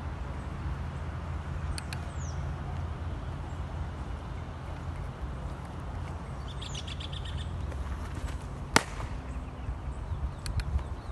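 Birds chirping, with a quick run of about eight chirps around seven seconds in, over a steady low rumble. Near nine seconds comes one sharp, loud smack, a baseball hitting a leather glove.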